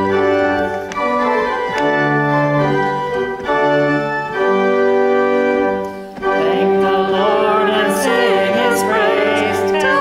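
Organ playing a hymn in held chords that change every second or two; about six seconds in, singing with a wavering vibrato joins the organ.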